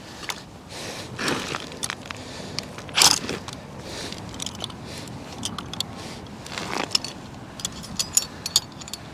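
Steel ice anchor and drill anchor adapter clinking and rattling, with a few short scraping bursts of metal against ice.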